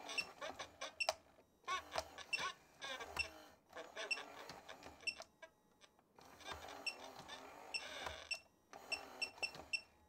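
A Bug's Life Flik-and-Hopper talking toy running underpowered on about 2 volts: its voice and sound playback come out faint and garbled, breaking off and restarting every second or so, with small ticks in between. The low supply voltage is what makes it brown out and stutter.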